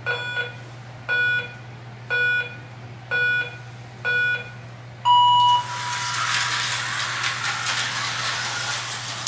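Electronic race-start countdown from the slot car track's lap counter: five short beeps about a second apart, then a longer, lower 'go' beep. Right after it the slot cars take off, their small electric motors whirring and rattling in the plastic track slots.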